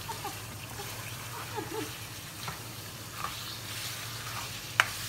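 Chunks of beef shank frying in spice paste in a nonstick wok, stirred and scraped with a spatula. A steady low hum runs underneath, and there is one sharp click near the end.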